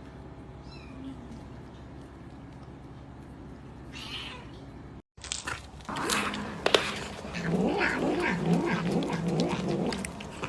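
A domestic cat yowling in a low, drawn-out, wavering voice, loudest in the second half, among sharp knocks and clatter. The first few seconds hold only a faint background hum.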